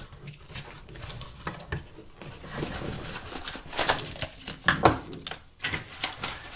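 Phone accessories and their packaging being handled during an unboxing: irregular rustling and small clicks and taps, with a couple of sharper knocks about four and five seconds in.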